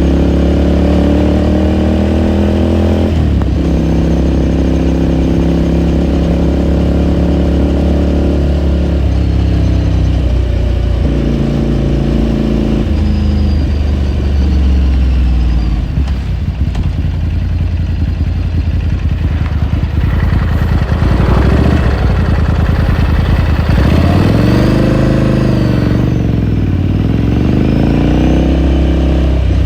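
Ducati Scrambler Sixty2's 399 cc air-cooled L-twin engine pulling under load, its pitch climbing and then dropping at gear changes about 3, 9 and 11 seconds in. Later the revs fall and rise again twice as the throttle is rolled off and opened.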